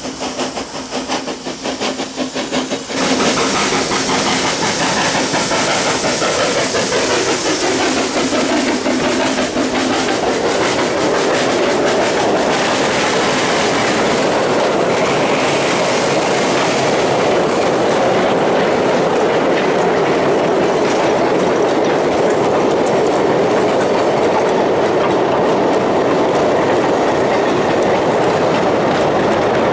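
For the first few seconds, a narrow-gauge steam locomotive approaches. Then, after a sudden change, a long rake of empty slate wagons rolls past with a steady clatter of wheels on the narrow-gauge track.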